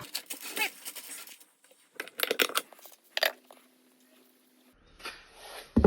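Small rustling, crackling and clicking noises from breadcrumb-coated chicken drumsticks being handled and knocked together, with a few sharp clicks about two to three seconds in.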